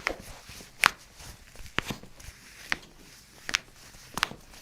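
A series of short, sharp taps or knocks, about one a second, over a quiet room.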